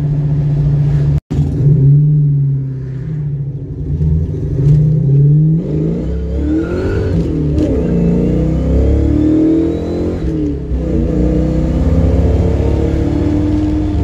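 Ford Mustang GT V8 with short-tube headers accelerating hard, heard from inside the cabin, revs climbing and dropping back several times as it runs through the gears. The header leak has been repaired, so it pulls cleanly without the exhaust tick.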